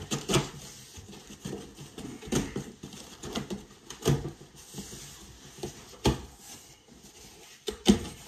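Knife slitting the packing tape on a cardboard shipping box and the flaps being pulled open: scraping and rustling of cardboard, with several sharp knocks.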